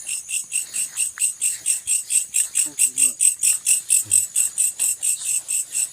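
Loud, high-pitched insect call pulsing evenly at about seven chirps a second. The recordist calls it a strange, unknown night sound.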